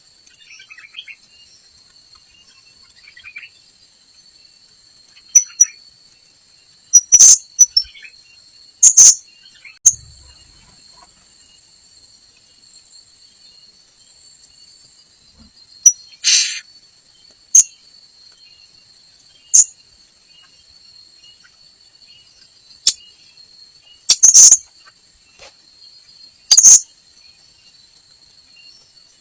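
Short, sharp, high-pitched calls of srindit (blue-crowned hanging parrots), a dozen or so at irregular intervals, some very loud, over a steady shrill insect drone.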